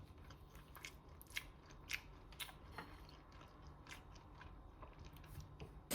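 Faint, scattered, irregular sharp clicks and crackles, roughly a dozen, over a low hum.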